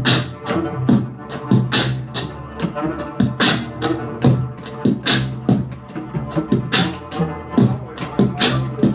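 Live cello music: bowed low string notes played over a steady beatboxed rhythm of vocal drum sounds.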